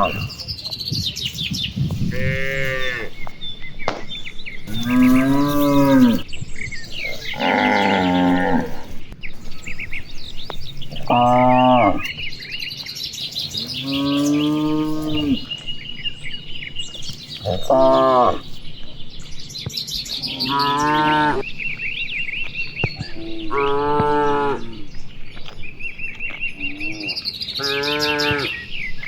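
Cattle mooing over and over, one long call every two to three seconds, with birds chirping in the gaps.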